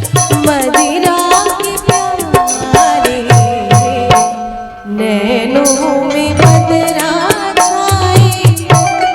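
Instrumental interlude from a live band: drums keep a steady beat under a wavering melody line, with a brief break about four and a half seconds in before the music picks up again.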